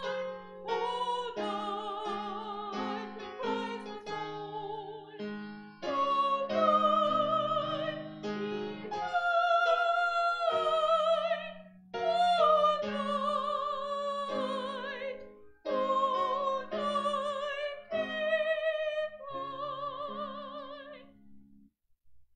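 A woman singing solo with a strong, wavering vibrato over a piano accompaniment. The song closes on a long held note that stops about a second before the end.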